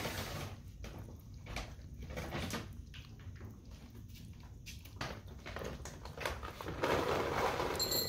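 Kitten lapping water at an electric cat drinking fountain: a run of soft, irregular clicks over the fountain's faint, steady running water. A louder noisy stretch comes near the end.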